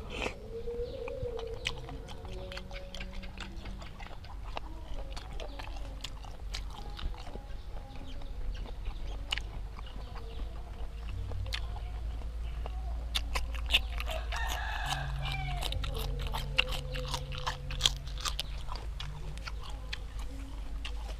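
Close-up chewing of grilled apple snail meat and raw greens, with many short wet mouth clicks and smacks.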